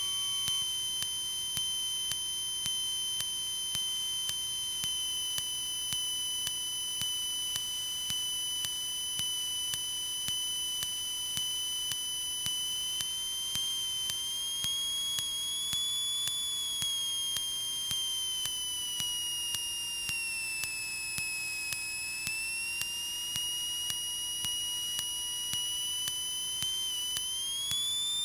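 Steady high-pitched electrical whine on the Cessna 152's headset intercom audio, slowly rising and falling in pitch, with a faint tick about once a second. The engine itself is barely heard.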